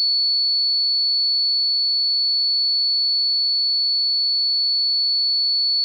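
Battery-powered buzzer of a homemade rain alarm giving one steady, high-pitched tone without a break: water on the salted tissue is conducting between the two aluminium-foil strips and closing the circuit, so the alarm has been triggered.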